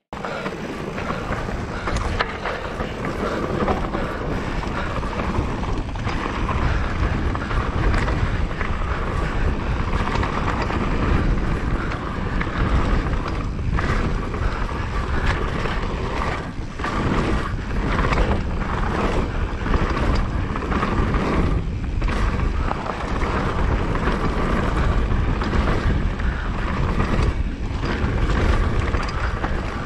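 Mountain bike riding down a trail: steady rumble of tyres over rough ground, with wind buffeting the microphone. It starts abruptly and runs on without a break.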